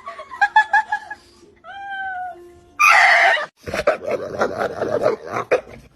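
A cat meowing, with a clear falling meow about two seconds in. About three seconds in comes a loud, short, harsh noise, followed by a few seconds of scrabbling, clattering noise.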